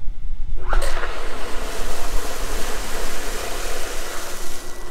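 Irrigation line at a filter station purging air and water as the system comes on: a sudden loud rushing hiss of water jetting from a pipe outlet, starting about a second in and easing near the end, over wind buffeting the microphone.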